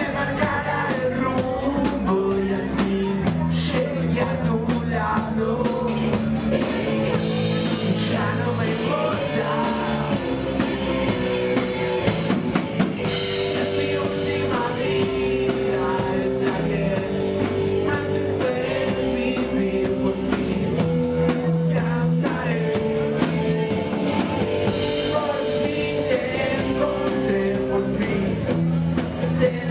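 Live punk rock band playing: electric guitar chords over a drum kit, with a man singing at times.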